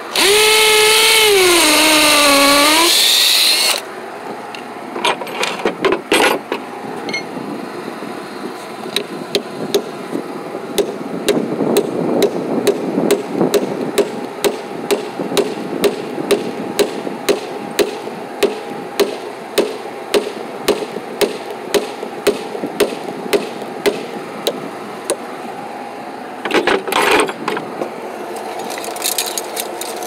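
DeWalt 20V cordless drill running hard for about three and a half seconds, its motor pitch sliding down as it loads up. After it stops, a steady running hum with even ticks about twice a second continues, broken by two short bursts.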